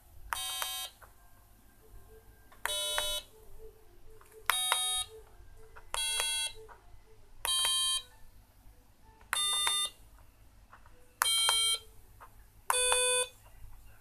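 A small speaker used as an Arduino buzzer plays eight short electronic beeps, about one every two seconds. Each beep is a buzzy half-second tone at a different pitch, set off by a different keypad button.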